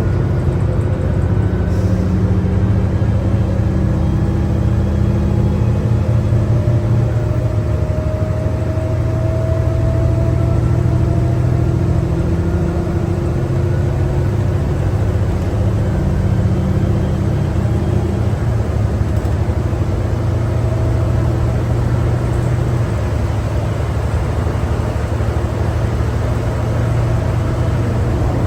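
Cummins ISL9 diesel engine and Allison B500R automatic transmission of a New Flyer D60LFR articulated bus running under way, heard from inside as a steady drone with a whir. The engine note changes twice, about seven and eighteen seconds in, with a faint rising whine between.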